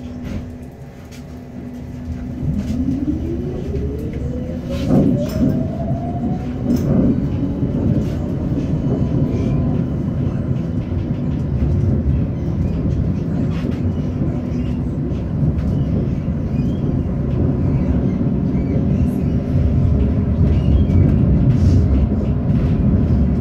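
Electric tram pulling away from a stop: a steady hum, then the traction motors whine rising in pitch as it accelerates, with a couple of knocks. Then a steady rumble of wheels on the rails as it runs along.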